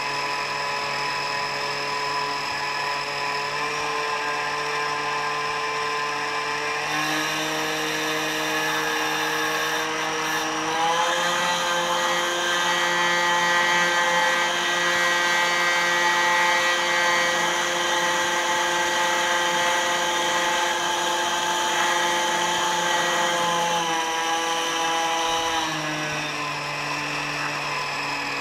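Lab rotor-stator homogenizer (high-shear mixer) running in a beaker of liquid, with a steady motor whine. The whine steps up in pitch three times over the first eleven seconds as the speed is raised, holds, then steps back down twice near the end.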